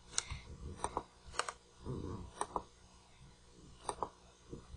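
Computer mouse button clicks, sharp and short, about ten in all, several in quick pairs.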